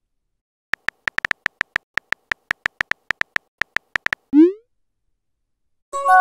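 Texting-app sound effects: a run of about twenty quick keyboard-tap clicks as a message is typed, then a short rising swoop as it is sent. Near the end comes a bright chime with several ringing tones that fades away.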